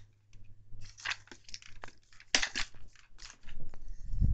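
Plastic parts of a Shark V15Z handheld vacuum being handled and pushed together: irregular clicks, creaks and crackles of hard plastic, with a dull low thump near the end.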